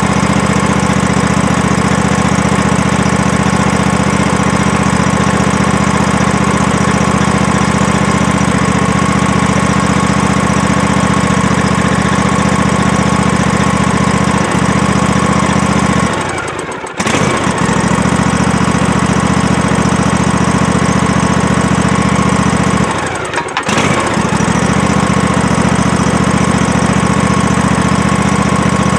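Husqvarna riding lawn mower's engine running steadily, with two brief dips in level, one past the middle and one about three quarters of the way through.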